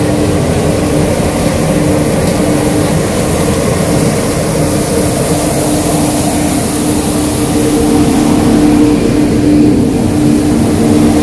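Johnston mechanical street sweeper at work: its engine and suction fan running with a steady droning whine as its rotating side brushes sweep the gutter, growing a little louder near the end as it comes close.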